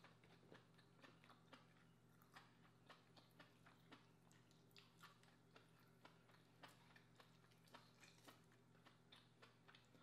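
Faint small clicks and crackles, several a second, of fingers picking meat out of a cooked lobster's shell, over a steady low hum.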